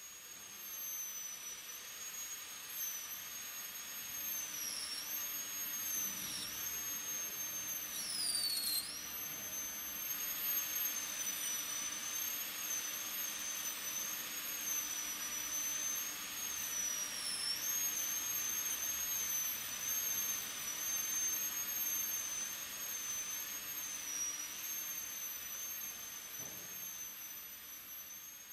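High-speed air-turbine dental handpiece running with a steady high whine over a hiss of air, grinding a plastic typodont molar down for a crown preparation. Its pitch dips briefly each time the bur bears harder on the tooth, most deeply about eight seconds in.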